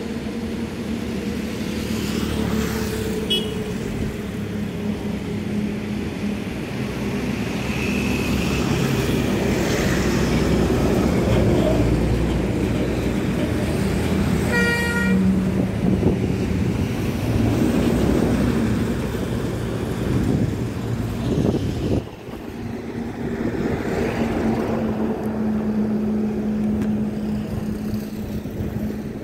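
Highway traffic noise: engines of passing lorries and cars running steadily, with a vehicle horn tooting briefly about halfway through.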